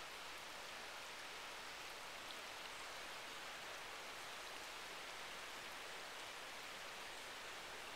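Steady, even rush of river water running over rock.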